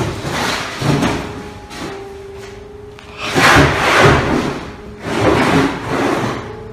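Scraping, rustling and knocking of objects and containers being brushed and shifted in a cluttered room, in several bursts of about a second each, the loudest about halfway through. A steady humming tone runs underneath.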